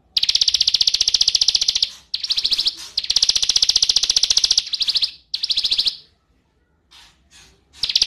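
Small grey-brown songbird singing a rapid, fast-pulsed trill in several bursts of about half a second to two seconds each. After a short pause there are a few brief chirps near the end.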